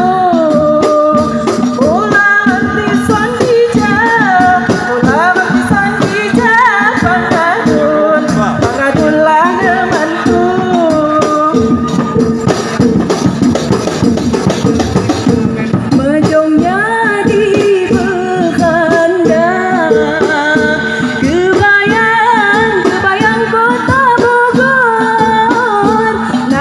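Live traditional Lampung nyambai music: singing over a dense, steady beat of hand percussion. For a few seconds around the middle the singing drops back and the percussion carries on alone, then the singing returns.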